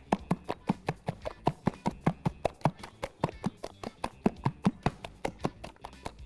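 Soft zalabia dough being beaten by a gloved hand in a glass bowl: quick, even slaps, about five a second.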